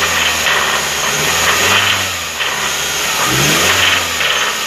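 Hyundai Tucson 2.0-litre engine running, blipped gently a couple of times so the pitch rises and falls. It carries the internal engine noise that the mechanic fears could fracture a connecting rod, so it is revved only lightly.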